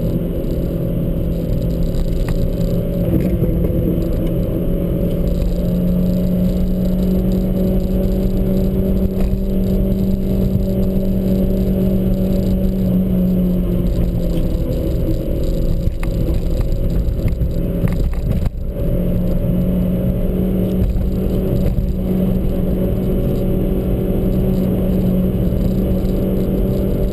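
Car engine running steadily under way, with tyre and road rumble; the engine note drops out briefly about eighteen seconds in.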